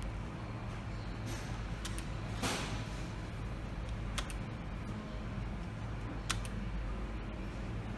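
Sharp clicks from playing a Merkur slot machine as spin after spin is started, several seconds apart, over a steady low hum.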